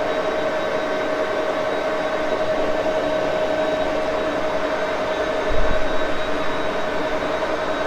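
Axelson lathe running steadily, a constant machine hum with a steady whine over it. A brief low thump about five and a half seconds in.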